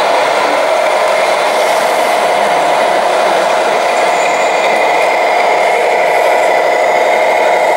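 Electronic truck engine sound from radio-controlled model trucks' sound modules, a steady drone played through small speakers.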